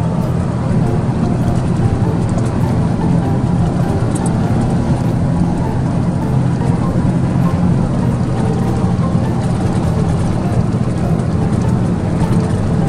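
Engine of a vehicle running steadily with a low drone while driving along a rough dirt road.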